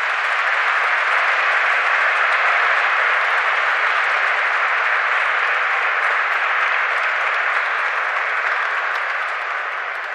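Congregation applauding in a church: steady, dense clapping that begins to die down near the end.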